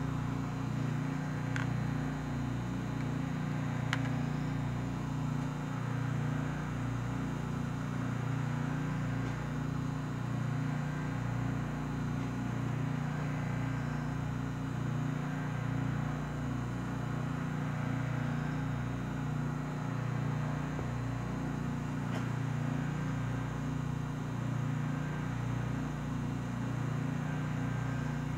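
Steady low machine hum of the SST 2200 Turbo vacuum oven running under vacuum (about 74 millitorr) while it holds a soak at 275 °C.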